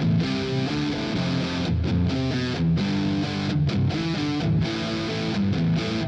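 Scorpion LP610 Les Paul-style electric guitar played through an amplifier: a run of single notes and chords, with a few short breaks between phrases.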